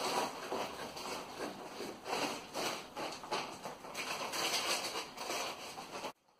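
Rustling and crinkling of an Isover Rolac Plata glass wool batt with an aluminium-foil facing as it is handled and pushed into a steel-stud wall frame. The sound stops abruptly near the end.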